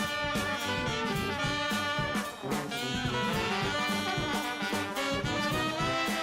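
Background music: upbeat jazz with brass horns over a steady beat.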